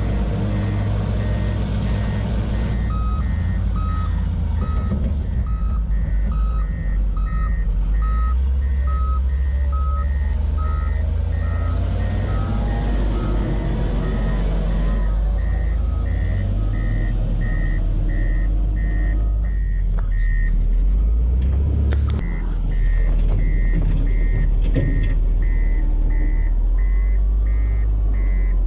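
Caterpillar 950F wheel loader's diesel engine running as the machine works earth, under a steady heavy rumble. Reversing alarms beep about twice a second, with a second, lower-pitched alarm beeping alongside for several seconds early on.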